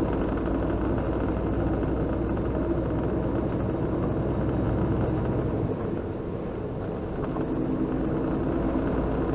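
Semi truck's engine running at highway speed, heard inside the cab along with road noise. About six seconds in, the engine note drops away, then comes back a second or so later.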